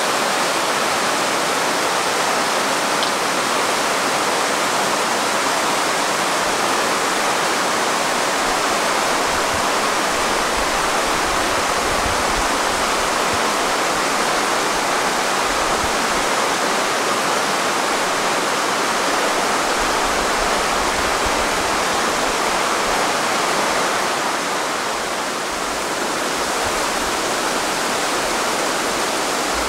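Steady rush of a fast-flowing mountain stream, a dense even water noise that eases slightly about 25 seconds in.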